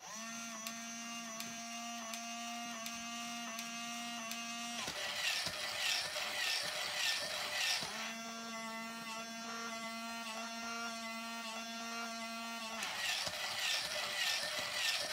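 Toy robot dog's small geared motors running: a steady hum with regular clicks about one and a half times a second. About five seconds in it turns to a noisier, pulsing whir, then the steady hum returns, and near the end it goes noisy again.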